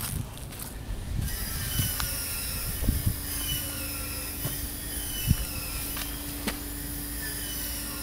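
Footsteps on grass and grit, with a few scuffs and knocks. About a second in, a high, wavering squeal of several overlapping tones starts suddenly, runs on and stops near the end; a steady low hum joins it partway through.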